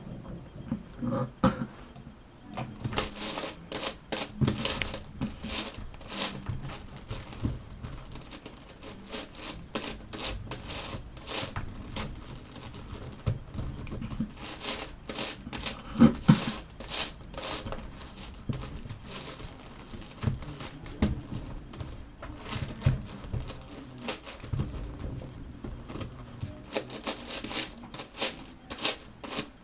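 Plastic puzzle cubes being scrambled by hand: rapid, irregular clicking and clacking as the layers are turned, with a few louder clacks.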